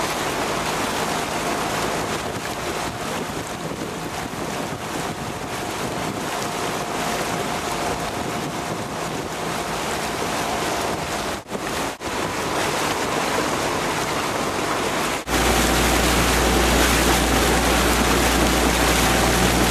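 Wind buffeting the microphone over rushing, lapping water, with a faint steady hum underneath. Two brief dropouts come just past the middle, and about three-quarters of the way through the sound cuts abruptly to a louder, heavier rumble of wind.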